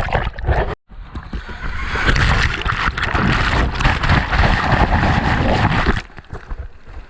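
Surf water rushing and splashing close to the microphone. It cuts out briefly just under a second in and drops in level about six seconds in.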